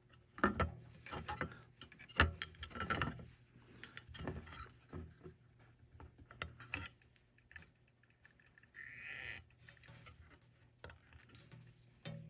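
Irregular small clicks, taps and knocks of hands and a soldering iron working on a printed circuit board at a bench while capacitors are soldered in. The knocks are busiest in the first few seconds, and there is a short hiss about nine seconds in.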